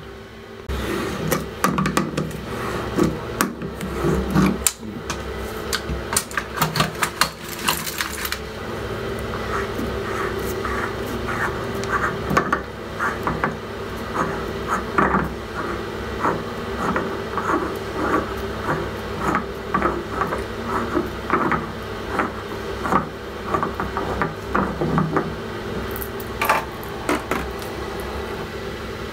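Handling noise of a thermostatic shower valve cartridge being worked out of its valve body by hand: a burst of sharp clicks and knocks, then a long run of small irregular clicks of plastic and brass parts against the chrome fitting, over a steady low hum.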